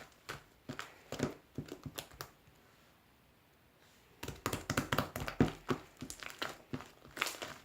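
Slime being squeezed and worked by hand, giving runs of small crackling clicks and pops, with a quiet pause of about two seconds in the middle before a denser run of crackling.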